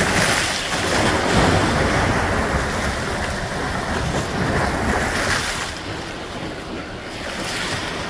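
Ocean waves crashing and splashing close by, with wind buffeting the microphone; the rush of water eases a little over five seconds in.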